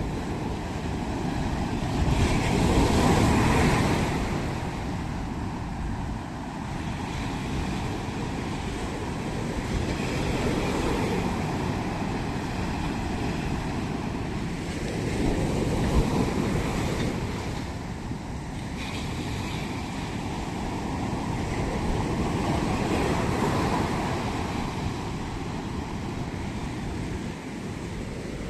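Ocean waves breaking and washing on the shore. The surf swells and eases every several seconds and is loudest a few seconds in.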